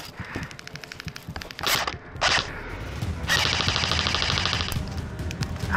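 Airsoft rifle firing on full auto: a rapid run of sharp clicking shots, two short noisy bursts, then a second, louder run of rapid fire lasting about a second and a half.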